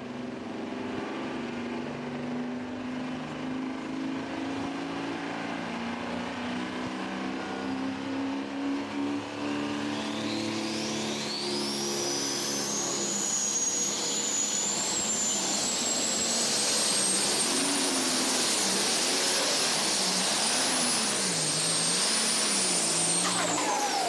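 A John Deere super stock diesel pulling tractor's turbocharged engine running at the start line, then spooling up: a high whistle begins about ten seconds in, climbs steeply and holds high while the engine gets louder, then drops away sharply near the end as the tractor moves off.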